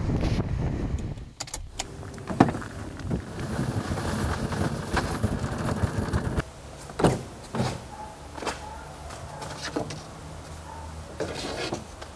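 Low vehicle or rolling rumble for the first six seconds. It then drops suddenly to a quieter stretch with scattered knocks and clicks of wooden planks being handled.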